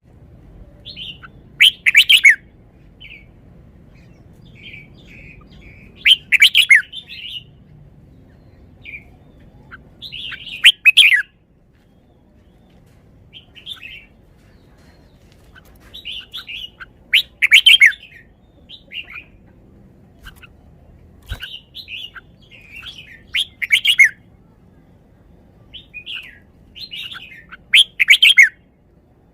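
Red-whiskered bulbul singing: six loud, short warbled phrases spaced four to six seconds apart, with softer single chirps and notes in between.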